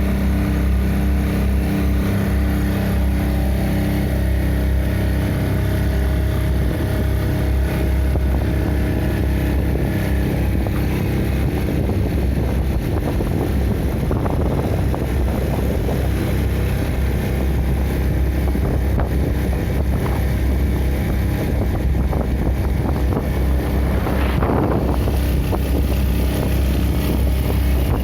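Motorboat engine running steadily, a continuous low hum with a few steady tones, and a brief rush of noise near the end.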